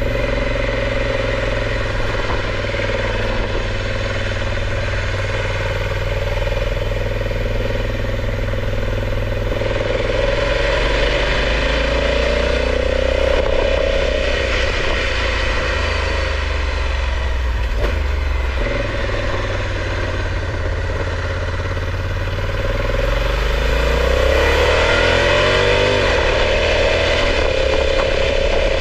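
Motorcycle engine running under way, its note rising and falling about halfway through and rising again a few seconds before the end as the throttle opens.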